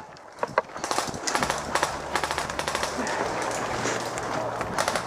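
Airsoft guns firing rapid bursts: fast clattering shots, sparse at first, then dense strings of them from about a second in.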